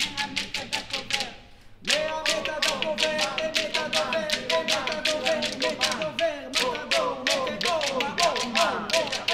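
A choir singing over a fast, steady pulse of sharp clicks. Both drop briefly about a second in, then come back together just before two seconds in with held notes and voices sliding in pitch.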